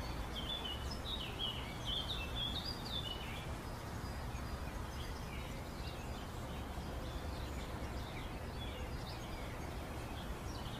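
Outdoor ambience: a steady low background rumble with small birds chirping, busiest in the first few seconds.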